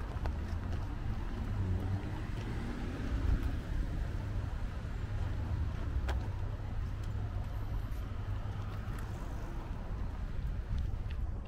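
Steady low outdoor rumble, with a faint click about six seconds in.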